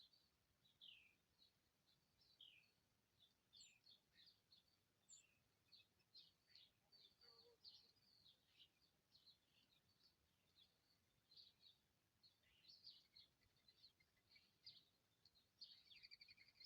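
Small birds chirping faintly: many short, high calls and quick falling notes, one after another.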